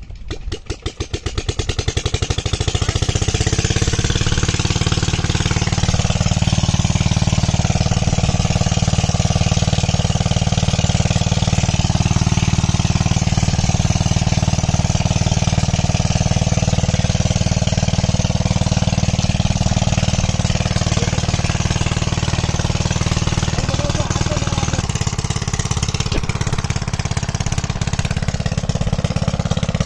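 A small engine starting up, its putts quickening over the first two seconds or so, then running steadily.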